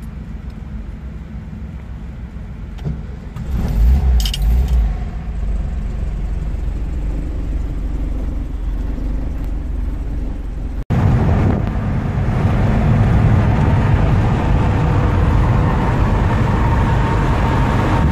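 Keys jangle in the ignition of a Volkswagen bus and its engine starts about four seconds in, then runs steadily. After a brief cut, the bus is on the move, with engine and road noise loud and steady in the cab.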